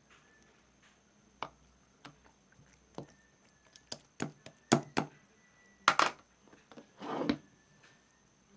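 Slime being pressed and stretched by hand, making a series of sharp pops and clicks. The clicks bunch together around the middle, and a longer squelch comes near the end.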